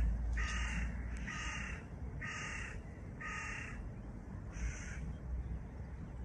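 A bird giving five harsh calls, about one a second, the last one fainter.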